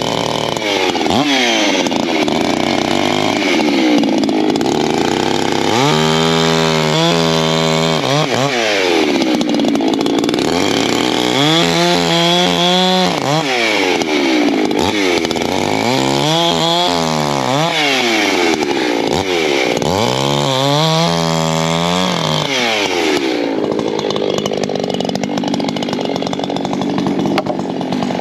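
Ported Echo CS-620 two-stroke chainsaw running at high revs while bucking firewood logs. Its engine pitch rises and sags repeatedly as the saw is throttled and loaded in the cuts, easing off a little near the end.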